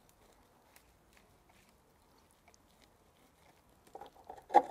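A large knife slicing down through a tall double-patty burger: faint soft crunches and squishes of bun, lettuce and sauce. About four seconds in, a burst of louder squelching and a sharp knock as the burger splits and falls apart on the plate.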